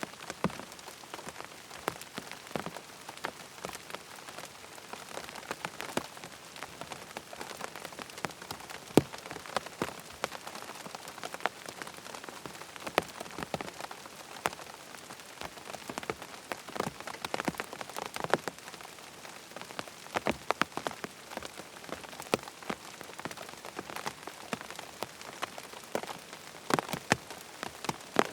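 Steady rain falling on a tent, with many individual drops tapping sharply and irregularly over a continuous hiss.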